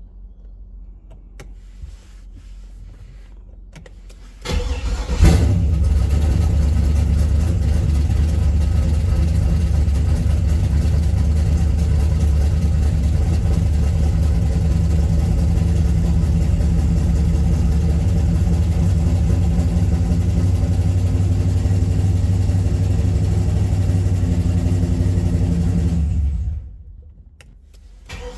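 Turbocharged car engine on a Holley ECU cranks briefly and catches about four and a half seconds in: a first start after a no-start, on a freshly loaded engine file. It runs steadily for about twenty seconds, then shuts off abruptly and starts again right at the end.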